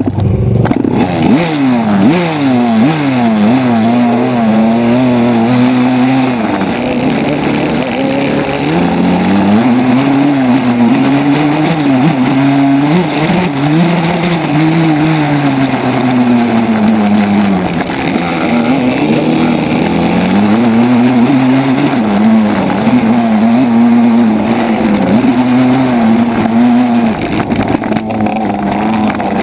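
Dirt bike engine heard from on board while riding a motocross track, its pitch repeatedly climbing and dropping as the throttle is opened and closed through the turns and straights, with a few quick short climbs near the start.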